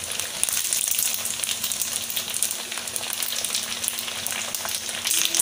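Flour-coated macaroni deep-frying in hot oil in a kadhai: a steady sizzle full of fine crackles. The pieces are still pale, not yet golden brown.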